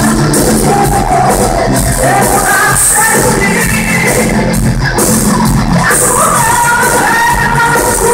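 Live pop-rock band with drums and guitars playing loudly, a female lead voice singing a held melody over it, heard from the audience in a large concert hall.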